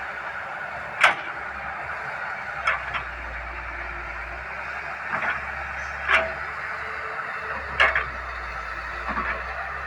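Excavator at work: a steady mechanical noise with a handful of sharp knocks at irregular intervals of a second or two.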